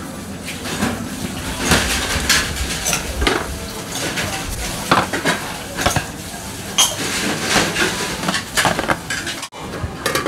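Stainless steel bowls and metal tongs clinking and clattering against each other, the steel counter and a metal tray in irregular sharp knocks as bowls of noodle soup are garnished and moved.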